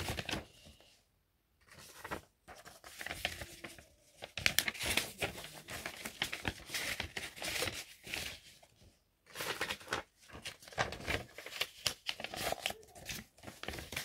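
Paper and cardboard rustling and crinkling in fits and starts as cards and papers are handled and packed into a cardboard box, with short pauses about a second in and about nine seconds in.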